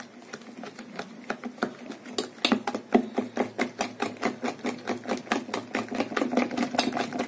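Thick batter of soaked, ground dal being beaten vigorously in a bowl: a quick, even run of wet taps at about five strokes a second, getting louder about two seconds in.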